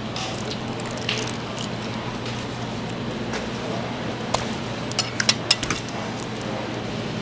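Knife work on a milkfish on a wooden cutting board: a few sharp clicks and taps of the blade against the board, bunched about four to six seconds in, over a steady low hum.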